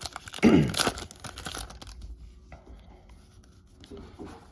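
Foil booster-pack wrapper crinkling and tearing as a trading-card pack is opened, loudest in the first second or two, then fading to faint rustles. About half a second in there is a short sound with a falling pitch, like a brief grunt or sigh.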